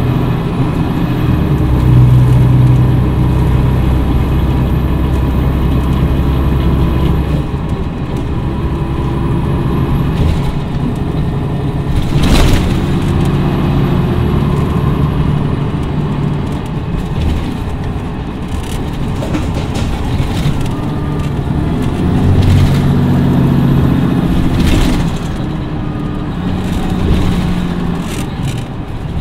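Cummins ISM inline-six diesel engine of a 2011 Motor Coach Industries D4505 coach running, its pitch and loudness shifting several times with load. A few brief sharp noises cut through it, the loudest about twelve seconds in.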